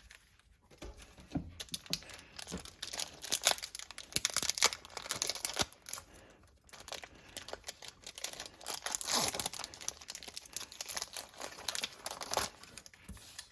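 Foil Pokémon card booster pack being torn open and its wrapper crinkled by hand, in crackling bursts with a short lull about halfway through.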